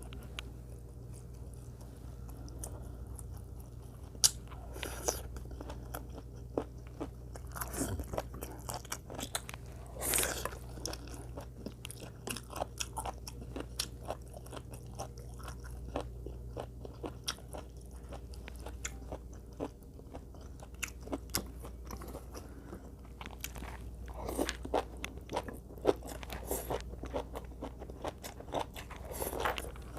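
A person chewing and biting food close to the microphone: a steady run of short smacks and clicks, the sharpest about four seconds in.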